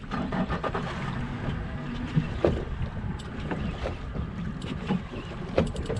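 Outboard motor idling with a low steady hum, wind buffeting the microphone, and scattered sharp clicks and knocks.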